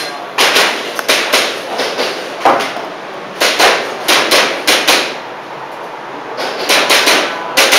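Airsoft pistol shots fired in quick strings of several sharp cracks, with short pauses between the strings.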